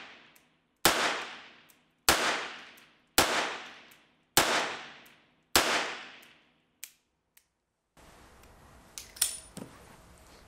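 Webley & Scott Mk IV pocket revolver in .38 S&W firing five shots, a little over a second apart, each with a long echo that dies away. After the shots there are a few faint clicks.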